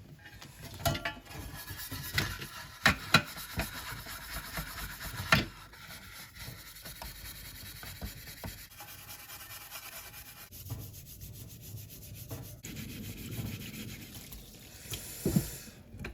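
Bonstar steel-wool pad scrubbing smoke-blackened residue on a metal smoker: a run of irregular scraping strokes with a few sharper, louder scrapes. The residue barely comes off.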